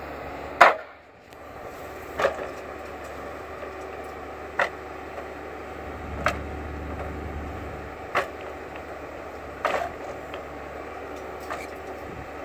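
Timberpro 840B forwarder's diesel engine humming steadily under sharp wooden knocks every second and a half to two seconds, seven in all, the first the loudest: logs knocking against each other as the machine handles its load.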